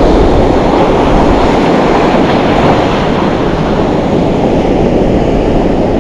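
Steady wind noise buffeting the microphone, mixed with breaking surf on an open beach.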